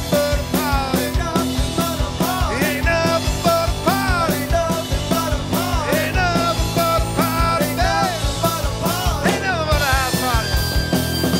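Rock band playing live: drums, electric guitars and bass, with a harmonica playing bent, sliding phrases over them and holding one long note near the end.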